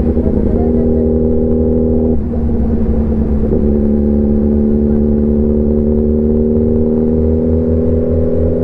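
Sport motorcycle engine running while riding, with a low wind and road rumble underneath. About two seconds in, the engine note breaks briefly, then it settles and slowly rises in pitch as the bike gathers speed.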